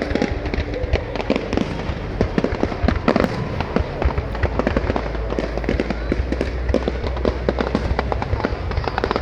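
Aerial fireworks going off in a dense, continuous string of sharp bangs and crackles.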